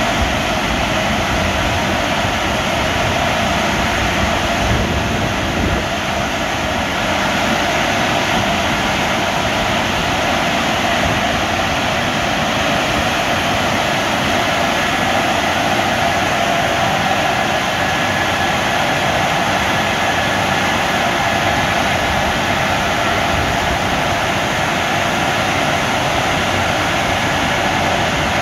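Drying blowers of a CSB rollover car wash running, a steady, loud, even blowing of air over the car.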